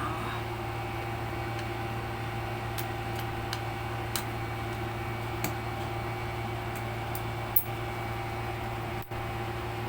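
Steady machine hum with a few faint, sharp clicks scattered through it.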